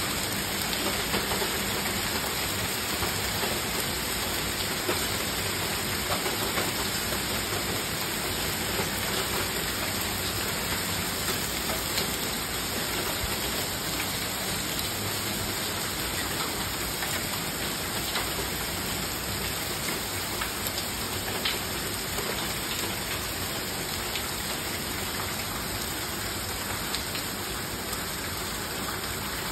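Hailstorm: rain and small hail falling steadily on a lawn, sidewalk and street, a steady hiss with scattered sharp ticks, easing slightly toward the end.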